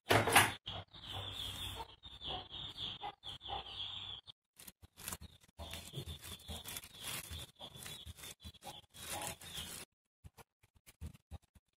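Plastic sheet and disposable plastic glove crinkling and rustling as a hand presses a stuffed dough ball flat on a board. There is a louder rustle right at the start, a short break about four seconds in, and the sound dies away about two seconds before the end.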